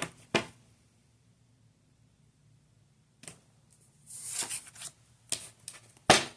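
Tarot cards being handled: a few sharp clicks, a brief shuffling rustle about four seconds in, and a loud snap of cards near the end, with a near-silent stretch in between.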